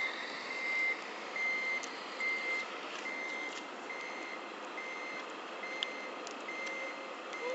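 Reversing beeper of an RC Mercedes-Benz SK 3544 8x8 dump truck, played by its onboard Servonaut sound module: a steady high beep a little more than once a second, over a constant running noise from the model.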